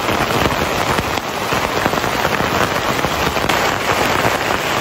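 Heavy downpour falling on the fabric roof of a Snow Peak Living Shell Long Pro tent, heard from underneath: a loud, dense, steady patter of raindrops.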